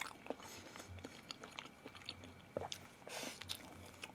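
Close-up eating: a person chewing food, with scattered small crunches and clicks and a short noisy rush about three seconds in.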